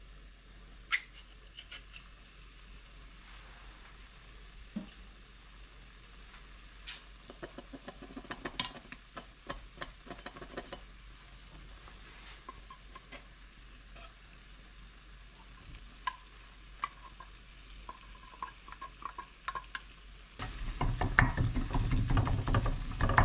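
Wooden spoon stirring a thick frying vegetable sauce in a stainless steel pan, with light sizzling and scattered clicks and scrapes of the spoon against the pan. Near the end, as chunks of canned fish are worked into the sauce, the stirring becomes much louder and busier.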